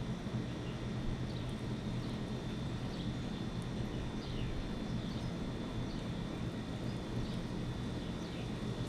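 A bird calling with short, downward-slurred chirps about once a second over a steady low rumble of distant traffic.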